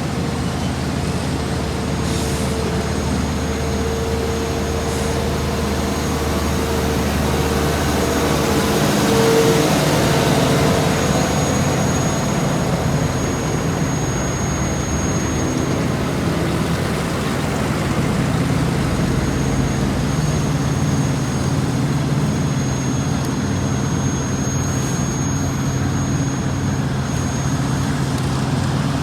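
Heavy diesel road-paving machinery running steadily, with a steady whine over the first third.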